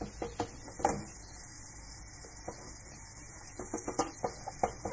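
Light kitchen handling noise: scattered short clicks and knocks, a few near the start and a cluster near the end, over a faint steady background hum.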